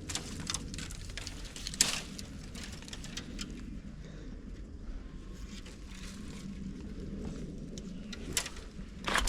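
Brush and plant stems being handled, giving scattered sharp snaps and crackles over a steady low rumble. The loudest snaps come about two seconds in and again near the end.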